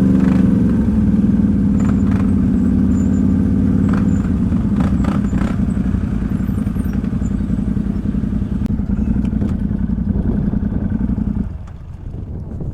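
ATV engine running at a steady speed, with a few light knocks; the engine sound drops away sharply near the end.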